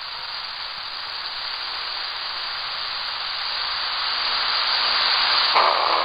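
Shortwave radio static: a steady hiss of band noise heard through an AM receiver, cut off above about 5 kHz. It comes from tuning 6000 kHz before the station's programme audio starts. Near the end, a fainter sound starts to rise through the noise.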